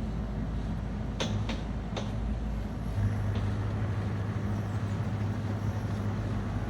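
Cat 305 mini excavator's diesel engine running steadily, with a few sharp knocks about a second in. About three seconds in, the engine note steps up and grows louder, as if the machine is put under load.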